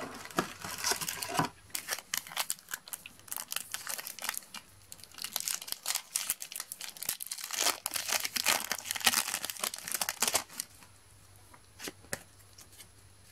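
A Match Attax trading-card packet's foil wrapper being crinkled and torn open: a dense, irregular crackling that stops about ten and a half seconds in.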